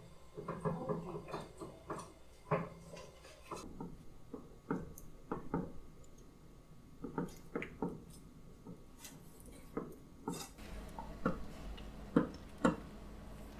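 Silicone spatula stirring thick chocolate sauce in a saucepan, scraping and knocking against the pan's sides and bottom in irregular strokes, as the sauce heats to the boil.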